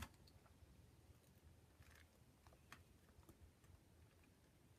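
Near silence: room tone with a few faint soft taps and rustles as a paint-loaded foam stamp is handled and pressed by hand onto an art journal page.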